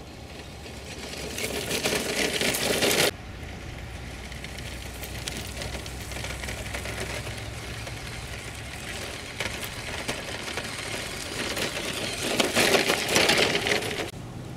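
Electric motor and gearbox of a Tamiya Toyota Hilux radio-controlled truck running as it drives over gravel and stones. It gets louder for a couple of seconds near the start, drops suddenly about three seconds in, and rises again near the end.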